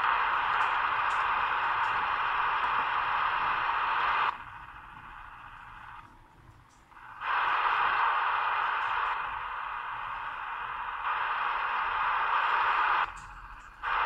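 Hiss of band noise from the speaker of a Zodiac Tokyo AM/FM-SSB CB transceiver, retuned through its Si5351 synthesizer. The hiss drops out twice for a few seconds and comes back suddenly, with a few faint ticks along the way.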